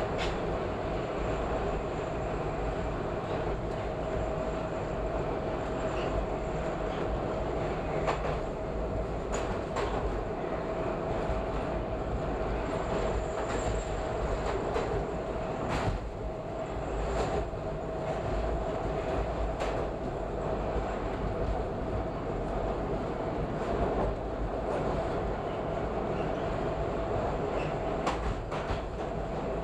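Subway train running through a tunnel, heard from inside the leading car: a steady rumble with a steady whining tone, and scattered sharp clicks as the wheels cross rail joints.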